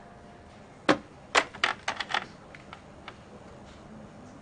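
Plastic desk telephone handset lifted from its cradle: a sharp clack about a second in, then a quick run of clicks and clatters as it is handled, with a few faint ticks after.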